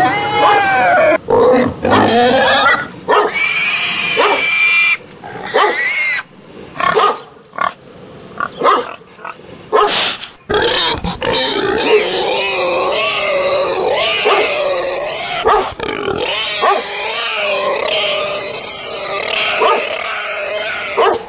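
Swine squealing loudly, with many high, bending squeals overlapping one another. There are a few short breaks in the first half, and the squeals come more densely from about 11 seconds in.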